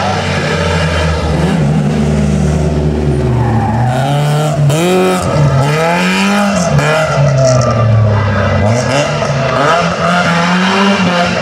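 Rally car engines at full throttle through a tight bend, the revs climbing and dropping again and again with quick gear changes. A BMW E30 slides sideways through the corner, its tyres sliding on the tarmac.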